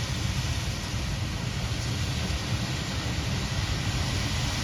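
Steady low rumble of grain trucks and a combine harvester running, under an even hiss.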